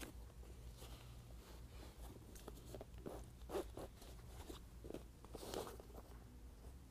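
Faint, scattered rustling and crinkling of a vinyl-and-fabric soft top being handled and straightened by hand, over a low steady room hum.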